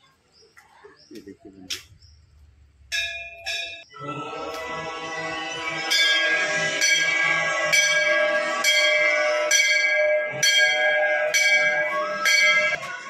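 Temple bell rung repeatedly, a strike a little under once a second, its ringing overlapping into a dense, steady clang. A single strike comes about three seconds in, and the loud ringing begins about a second later.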